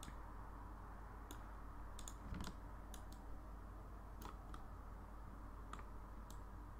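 Faint, scattered clicks of a computer mouse and keyboard, about a dozen spread irregularly, over a low steady hum and hiss of room tone.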